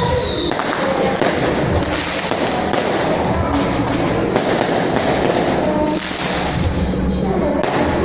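A string of firecrackers going off in a long, dense crackle, with music underneath; the crackle thins out near the end.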